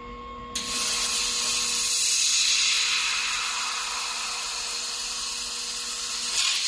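3-in-1 laser welding machine firing at metal: a loud steady hiss starts about half a second in and cuts off suddenly near the end, over the machine's steady electrical hum.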